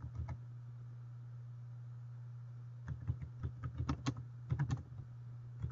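Computer keyboard typing: a couple of keystrokes at the start, a pause, then a quick run of keystrokes from about three seconds in until near the end, over a steady low hum.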